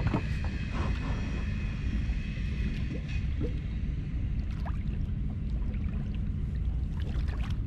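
Wind rumbling on the microphone over water lapping against a fishing kayak's hull, with a few faint clicks.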